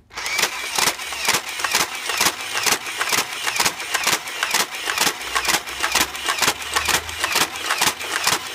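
Nerf N-Strike Vulcan EBF-25 belt-fed dart blaster firing on full auto under battery power: its motor runs steadily while the mechanism clacks out darts in a regular rhythm, about three shots a second.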